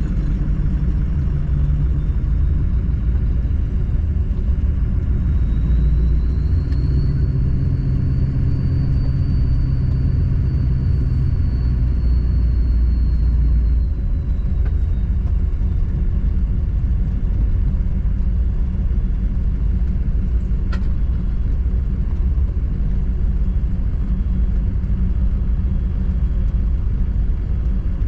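Road and engine noise of a diesel truck being driven, a steady low rumble. A low hum in it drops away about twelve seconds in, a faint high whine rises and fades from about six to fourteen seconds in, and there is a single click about twenty seconds in.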